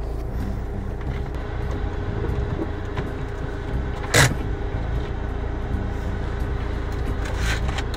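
Street traffic: a steady low rumble of passing vehicles with a faint steady hum, and one short, sharp noise about four seconds in.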